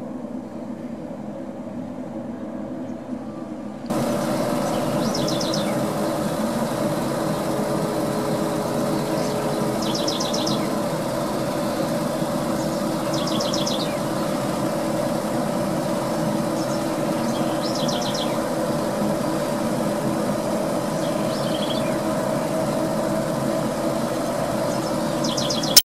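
Industrial extractor fan of a potato chip factory running steadily, a droning hum over a rush of air. The sound steps up sharply about four seconds in; before that comes a quieter steady hum of the factory's rooftop exhaust stacks. A bird gives short trilled chirps every few seconds over it.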